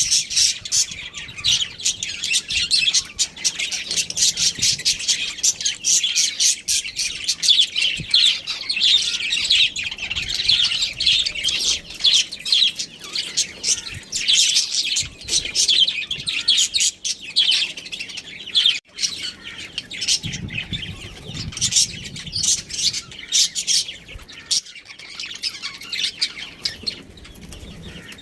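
Budgerigars chirping, a dense stream of quick, high chirps that thins out near the end.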